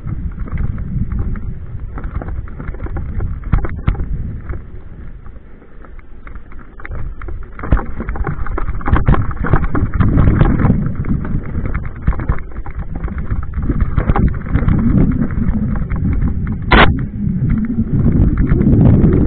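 Mountain bike descending a rocky trail: wind rushing over the microphone with the clatter and knocks of tyres and frame over stones, louder in the second half. A brief high squeal near the end.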